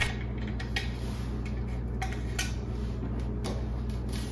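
Irregular light metallic clicks and clinks as a screwdriver works small screws out of a sheet-metal light-fixture mounting bracket, over a steady low hum.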